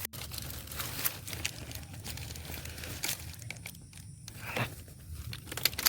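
Irregular rustling and crackling with scattered clicks, and a sharper crack near the end.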